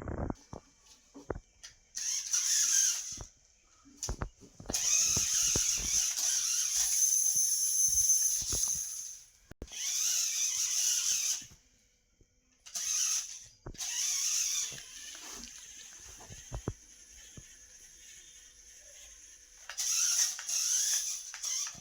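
Small electric motor and gearbox of a toy off-road climbing car whirring in repeated bursts of one to four seconds, with sharp clicks and knocks in between as it moves.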